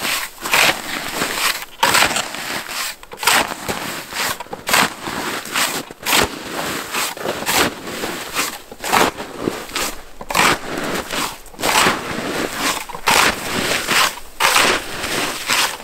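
A snow shovel repeatedly cutting into and scooping packed snow, with a crunching stroke about every one and a half seconds and lighter crunches between them.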